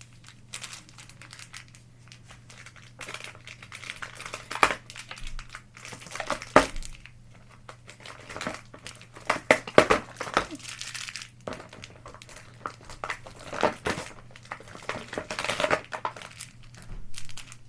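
Small plastic bags and packets crinkling and rustling in irregular bursts as they are handled.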